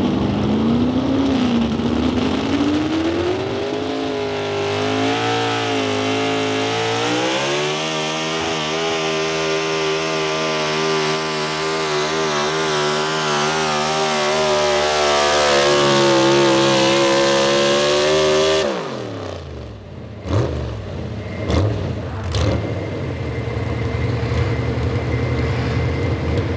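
Pro Stock 4x4 pickup's big-block V8, carbureted on a single four-barrel, at full throttle pulling a weight-transfer sled: the engine's pitch climbs over the first eight seconds and holds high for about ten more. About two-thirds of the way in the throttle is chopped and the engine note drops sharply, followed by a few sharp knocks.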